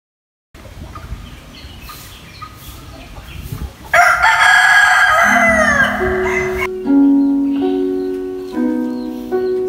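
A rooster crows once, about four seconds in: one long call that falls in pitch at its end. Slow music with held notes begins under the crow and carries on after it.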